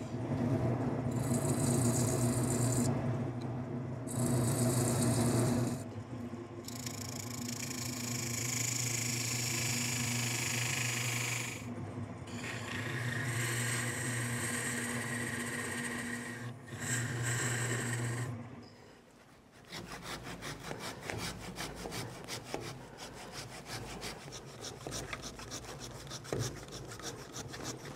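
Wood lathe humming as a thin tool cuts a groove into a spinning almond root ball blank, the cutting hiss coming in passes with brief breaks. About two-thirds of the way in the lathe stops, and quick rasping strokes follow as a blade is worked in the groove by hand.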